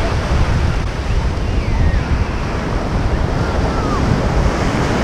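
Wind buffeting the microphone in a steady, heavy rumble over the wash of surf.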